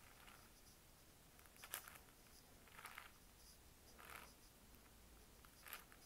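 Faint plastic clicking and scraping of a 6x6 speed cube's layers being turned by hand, about four separate turns roughly a second apart.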